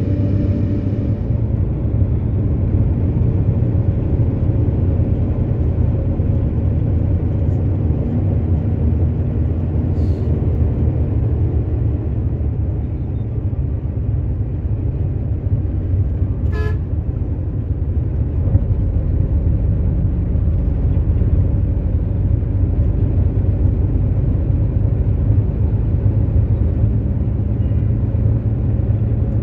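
A moving bus's engine and road noise, a steady low rumble, with a brief horn toot a little past halfway.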